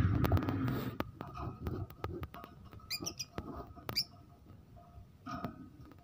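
Peach-faced lovebirds making a few short, high squeaky chirps about three and four seconds in, among scattered clicks and a burst of scuffling at the start.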